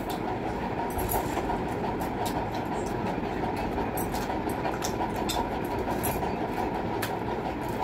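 An electric fan running with a steady rushing noise, with light clicks as naan is torn and eaten by hand.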